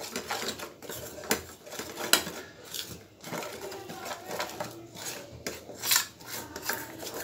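A spoon scraping and knocking against a pan as a thick sugar syrup mixture is stirred: irregular scrapes with a few sharper clicks, the loudest about two seconds in and again near six seconds.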